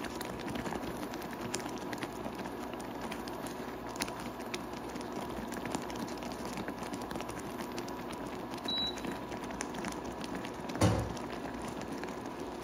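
Thick peach and date jam simmering in a pan: a steady bubbling crackle of many small pops, with a single dull knock about eleven seconds in.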